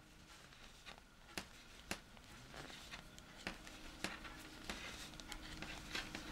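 Circular knitting needles ticking against each other while stitches are knitted, a handful of faint, sharp clicks at irregular intervals.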